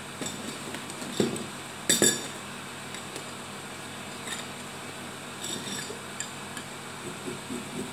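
Kitchen utensils and dishes clinking as a drink is prepared: a few sharp clinks, the loudest two about one and two seconds in, then lighter taps.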